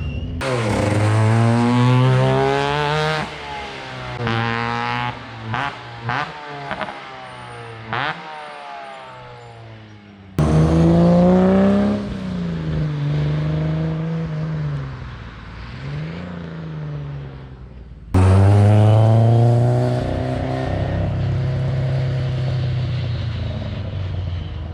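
Rally car engines at full throttle on a special stage, in three clips cut together. The first accelerates hard through several upshifts, then gives a run of short throttle blips with sharp bangs; the second revs up and down through a bend and fades away; the third accelerates hard through the gears and fades as it goes past.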